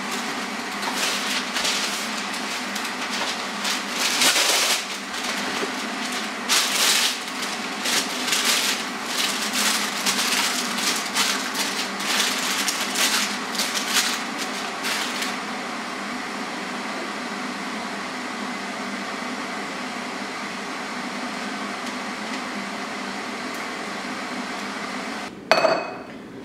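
Baking paper being pulled off its roll, crinkled and pressed into a metal baking tray, a dense run of irregular crackling rustles that stops about fifteen seconds in and leaves a steady hiss. A sudden knock comes near the end.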